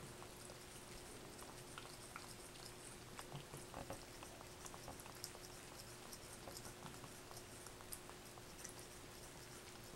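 Faint, irregular small wet clicks and ticks of a cat licking water off her paw and dipping the paw into a plastic tub of water, over a faint steady hum.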